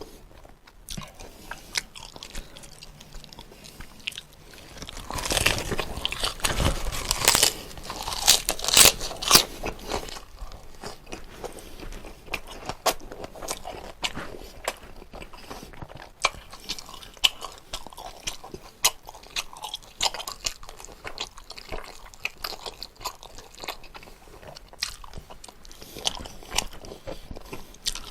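Close-miked chewing and biting of spicy braised pig's trotters and lettuce wraps: wet mouth clicks and crunching, loudest and densest about five to ten seconds in.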